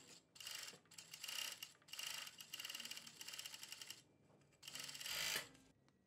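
Jack JK768DI industrial overlock machine (serger) running at speed, stitching along a fabric edge with the differential feed set for gathering. It sews in a few short spurts and then a longer run of about two seconds, stops, and runs once more briefly near the end.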